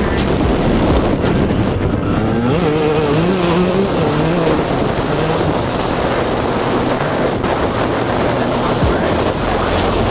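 Enduro dirt bike running under throttle while ridden along a bumpy dirt track, with heavy wind noise on the onboard microphone. A wavering pitched note rises and falls for a couple of seconds near the middle.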